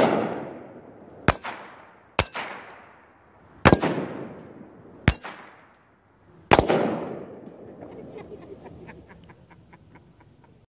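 Gunshots and plastic soda bottles pressurised to about 100 psi bursting when hit: five sharp bangs, each trailing off in echo, the two loudest about three and a half and six and a half seconds in. A run of faint quick ticks follows near the end.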